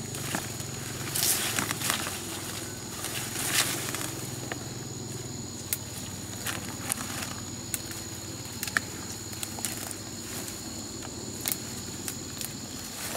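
Leaves and vines rustling and stems snapping as wild forest greens are picked by hand from dense undergrowth, with bursts of rustling about a second in and again near four seconds, and sharp single snaps scattered through. A steady high insect drone runs underneath.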